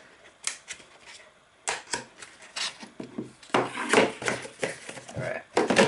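Cardboard box and packaging being handled: a series of light knocks, clicks and scraping rustles.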